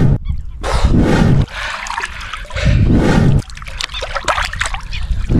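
Shallow lake water splashing and trickling as a person crawls through it, with two loud, heavy surges of sound about two seconds apart and scattered drips and small splashes between them.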